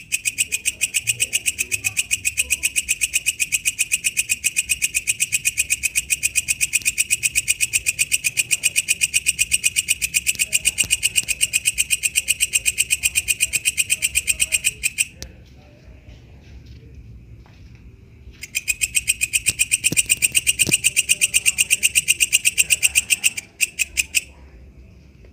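Walang kecek bush cricket calling with a rapid, evenly spaced train of high-pitched clicking pulses. It stops about fifteen seconds in, starts again about three seconds later, and stops again near the end.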